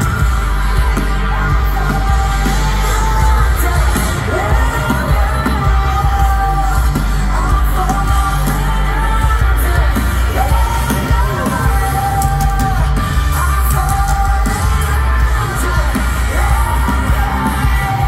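Live rock band playing through a big outdoor PA, with a woman singing long notes that slide up and down over heavy, constant bass.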